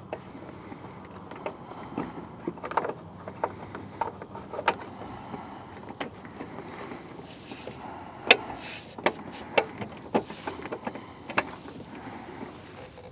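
Scattered sharp plastic-and-metal clicks, knocks and short scrapes as a Jeep tail light assembly and its fasteners are worked into place by hand, with the loudest click about eight seconds in.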